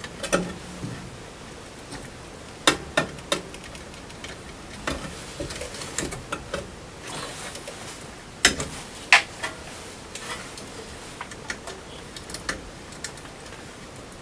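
Scattered light clicks and taps of a screwdriver and thermostat wire being worked at a gas unit heater's wiring terminals, with a few sharper clicks about three seconds in and again around eight to nine seconds in.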